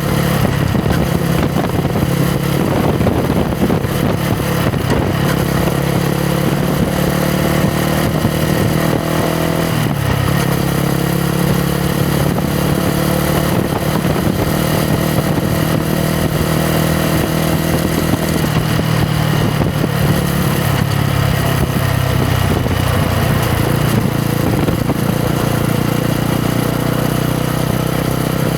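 Yamaha MT-125's 125 cc single-cylinder four-stroke engine and exhaust running under way on the road, holding a steady note that shifts in pitch a couple of times.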